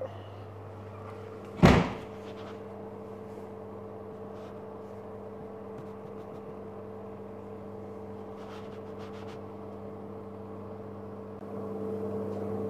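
Steady mechanical hum with an even low drone, growing louder near the end. A single short, loud burst of noise about two seconds in.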